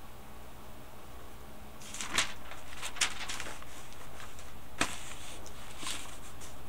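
Several sharp clicks and knocks, the first about two seconds in and the loudest near two and three seconds and just before five seconds, over a steady low hum.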